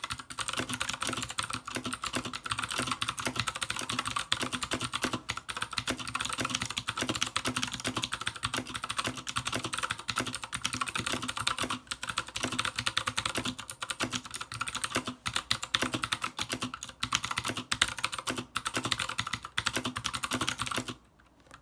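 Fast, continuous typing on an Anne Pro 60% mechanical keyboard with clicky Gateron Blue switches and double-shot ABS keycaps; the typing stops suddenly near the end.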